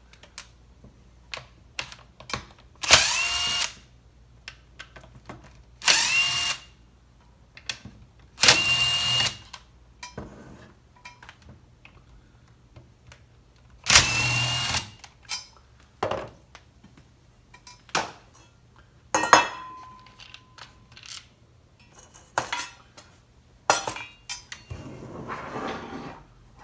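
Cordless power screwdriver backing out the starter housing screws of a chainsaw: four short runs, each a rising whine as the motor spins up, with clicks and knocks of parts and tools being handled in between.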